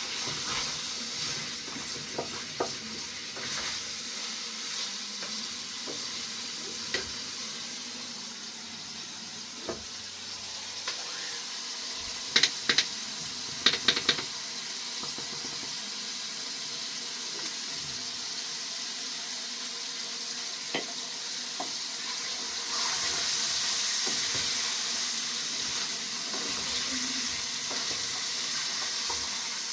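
A steady hiss with scattered sharp clicks, a quick cluster of louder clicks about twelve seconds in, and the hiss growing a little louder in the last quarter.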